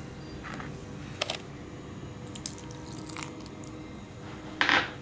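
Cake batter being stirred in a bowl: soft wet squishing with a few short scrapes and taps of the utensil against the bowl, the loudest near the end.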